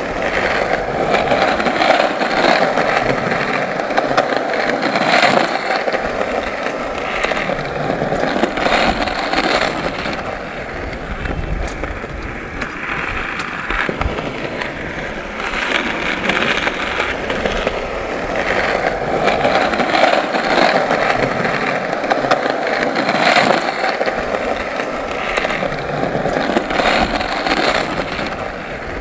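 Skateboard wheels rolling steadily, the rumble swelling and easing every few seconds, with scattered short clacks.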